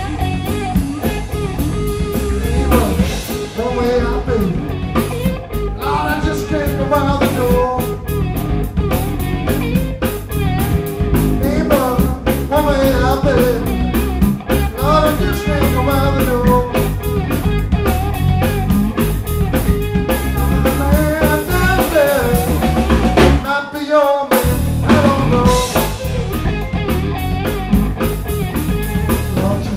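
Blues-rock trio playing live: electric guitar with bent, wavering lead lines over bass guitar and drum kit. The low end drops out for a brief stop about three-quarters of the way through.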